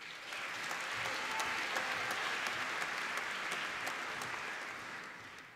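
Audience applauding, many hands clapping together. It starts at once, holds steady and fades away near the end.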